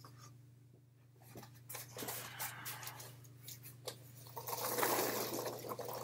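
Cardboard box being emptied and rummaged through: papery rustling of the packing material and light knocks of small items, growing to louder rustling near the end. A steady low hum runs underneath.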